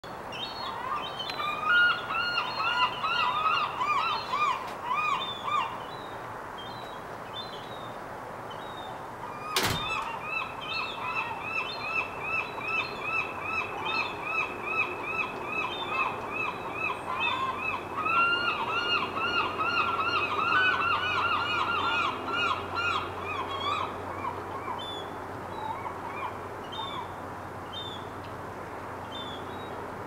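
Gulls calling in long runs of evenly repeated, rising-and-falling notes, about three or four a second, with two birds overlapping at times. A first run fades out, and after a single sharp knock a longer run starts and goes on for more than ten seconds before thinning to scattered calls.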